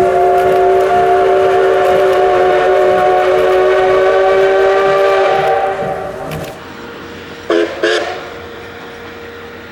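Steam locomotive whistle sounding one long blast of several notes at once, fading away about six seconds in. Two short toots follow about a second and a half later.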